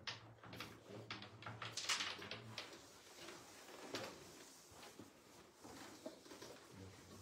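Carrom striker flicked across the board, clacking against the carrom men: a run of sharp clicks, the loudest about two seconds in, and another click about four seconds in.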